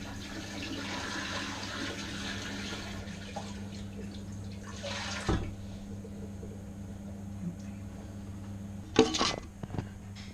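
Leftover water pouring out of a tilted, detached close-coupled toilet cistern into the toilet pan, fading away after about three seconds. A single knock about five seconds in and a brief clatter near the end.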